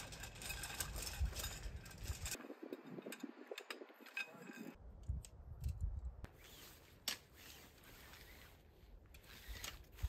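Tent setup handling noise: nylon tent fabric rustling and sections of shock-corded tent poles clicking together, with scattered light clicks and scrapes.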